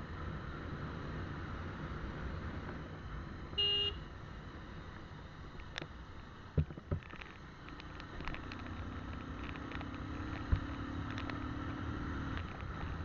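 Motorcycle riding along a winding road, its engine running under a steady rush of wind and road noise. A short horn beep sounds about four seconds in, and a few sharp knocks come later.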